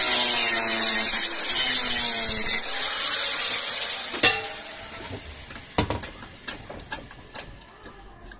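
A handheld electric power tool runs against a metal frying pan with a loud steady whine, then winds down about four seconds in. Scattered sharp metal knocks and clinks follow as the pan is worked by hand.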